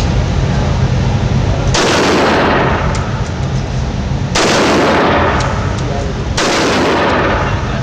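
Assault rifle fired three times, about two seconds apart, each shot trailing off in a long echo. A low rumble runs under the first couple of seconds.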